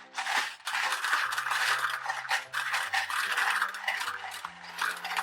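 Many small gumballs pouring through a funnel into a toy gumball machine, a steady clattering rattle of hard candy on plastic, with soft background music underneath.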